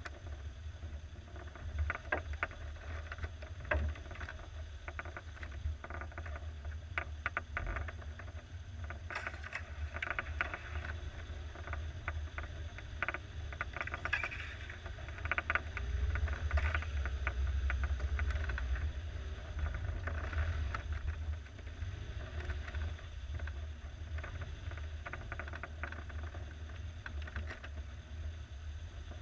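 1987 Suzuki SJ413's 1.3-litre four-cylinder engine running with a steady low drone as the off-roader crawls in low range, a little louder for a few seconds around the middle. Frequent short clicks and knocks come from the body and running gear over rough ground.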